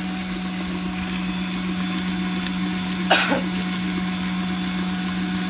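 Electric kitchen mixer (batidora) running steadily under its lid, churning a batter of eggs, orange juice, oil and sugar, with a steady motor hum and a high whine. One short noise about three seconds in.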